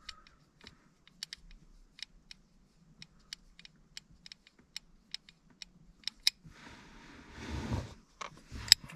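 Hand work on pedal-assembly hardware: a run of small, sharp, unevenly spaced clicks of parts being handled. Toward the end comes a longer scraping rustle, then a loud click.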